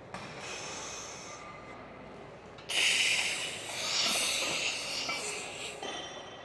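A person breathing hard: a short, faint intake of breath, then a long, forceful, hissing exhale lasting about three seconds, starting a little under three seconds in.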